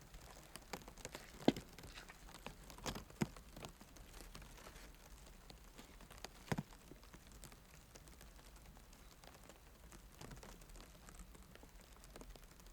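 Fire embers crackling faintly: scattered small pops and ticks over a low hiss, with a few louder pops about one and a half, three and six and a half seconds in.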